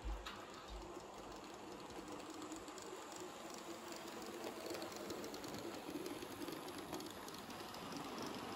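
Model electric locomotive and its passenger coaches rolling along the track, a steady rumble with faint clicking over the rail joints that grows louder as the train passes close. A brief low thump right at the start.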